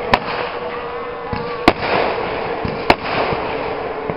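Fireworks display: three sharp bangs of aerial shells bursting, one to one and a half seconds apart, over a continuous hiss and rumble of other fireworks.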